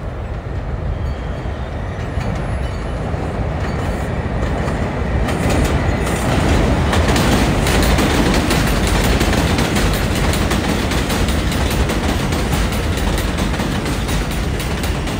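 New York City subway 4 train arriving at an elevated station: a steady rumble of wheels on the elevated steel track grows louder about five seconds in as the train comes alongside, with a fast run of clicks from the wheels passing over rail joints.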